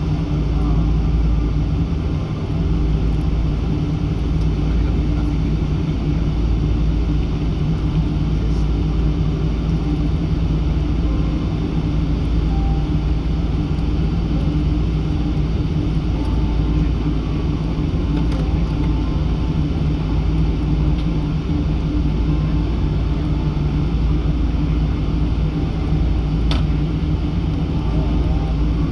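Steady low rumble and hum inside the cabin of a Boeing 777-300 airliner on the ground just after landing, from its idling engines and the cabin air system, with a few faint clicks.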